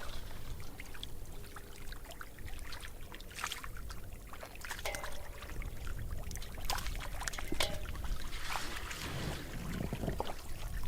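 Water splashing and trickling, with scattered knocks and clicks over a steady low rumble.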